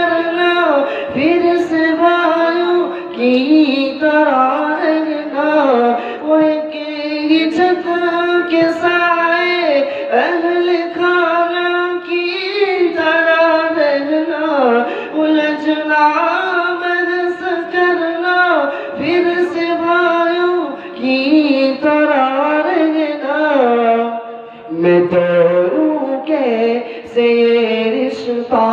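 A young man's voice singing an unaccompanied Urdu nazm into a microphone, with long held notes that slide and turn between pitches.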